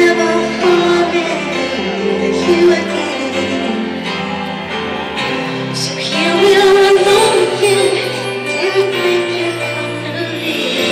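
Live concert music: a slow R&B ballad played by a band, with a woman singing long, held notes over sustained chords, heard from far back in the audience of a large hall.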